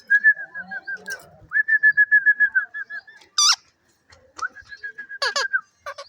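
Pet parrot whistling in quick runs of short notes held at one pitch, with short harsh squawks about a third of the way in and again near the end.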